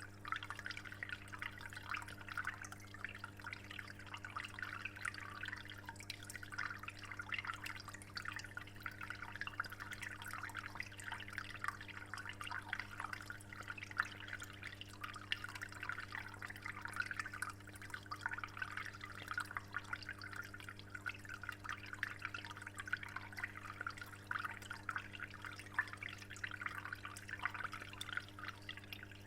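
Water in a discus aquarium trickling and splashing in a continuous dense patter, with a steady low hum underneath.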